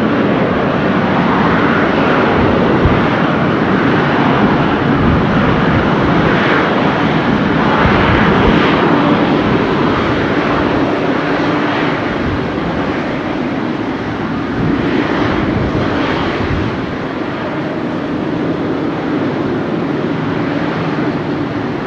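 Boeing 777-200ER's twin jet engines at taxi power as the airliner rolls past: a steady rushing noise with a constant hum underneath, easing slightly in the last few seconds.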